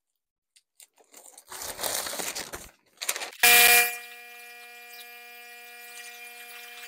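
A balloon being inflated: a rustle of the balloon being handled, a short loud blast of air about three and a half seconds in, then a quiet steady hum with a clear pitch that lasts about four seconds while it fills.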